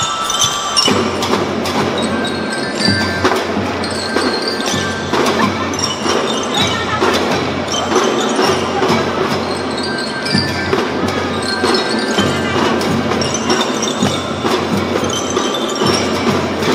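Children's drum band playing a march: ringing bell-lyre notes carry the tune over marching drums, and the full band comes in about a second in.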